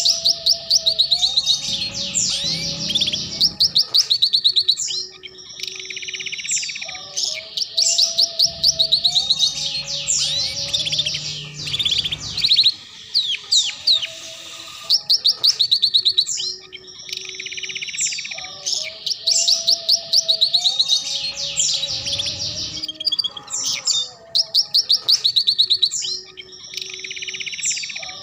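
Domestic canary singing loud, fast 'ngeriwik' song: rapid rolling trills and sharp chirps, with a phrase coming back about every four seconds.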